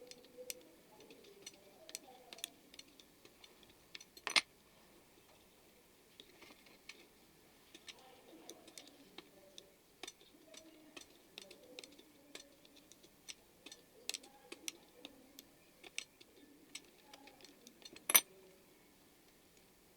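Light, irregular clicks and clinks of small parts and tools being handled, with two louder knocks, one about four seconds in and one near the end.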